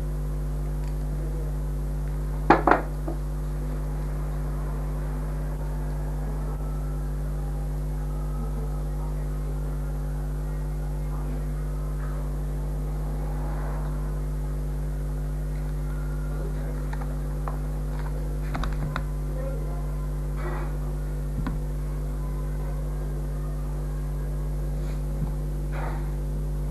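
Steady electrical hum, with a sharp double knock about two and a half seconds in and a few faint taps later as hands handle craft materials on a table.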